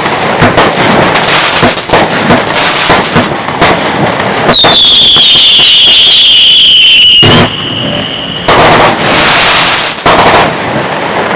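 Texas Tornado compact fireworks cake firing: a rapid string of sharp cracks, then about 4.5 s in a loud whistle that slides slightly down in pitch for nearly three seconds before fading, followed by two loud rushing bursts.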